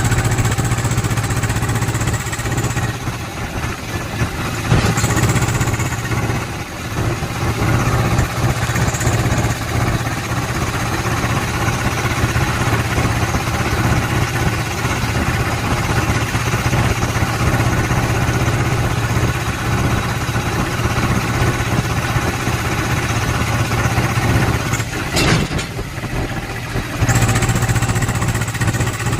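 Swaraj tractor's diesel engine running steadily at a low, even speed, with a brief sharp knock about three-quarters of the way through.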